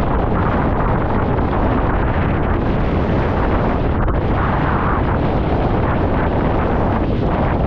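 Strong storm wind from Hurricane Lee blasting across the microphone: a steady, loud, deep rush with no break.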